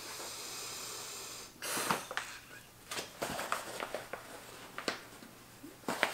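Breath blown by mouth into the valve of a Klymit inflatable seat cushion: one long steady breath for about a second and a half, a sharp intake of breath, then light clicks and rustles of the pad being handled.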